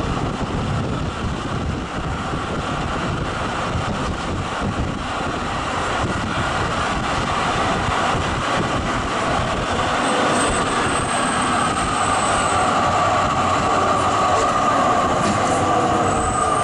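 Zürich tram running on street rails, heard through an open window: steady rolling noise of the wheels on the track. From about ten seconds in, a high thin wheel squeal and a slowly falling whine come in as the tram slows for a stop.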